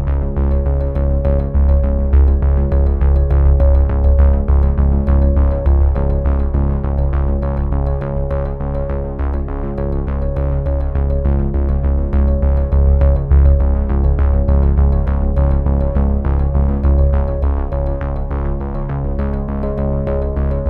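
Background music: synthesizer and keyboard chords over a quick, steady beat.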